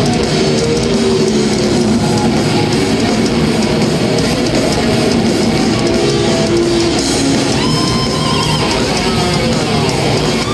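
A thrash metal band playing live at full volume: heavy distorted electric guitars over drums, with long held notes standing out in the last few seconds.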